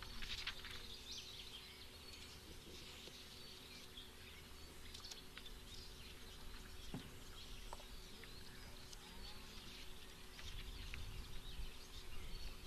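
Quiet open-air ambience with small birds chirping here and there and a faint steady hum underneath.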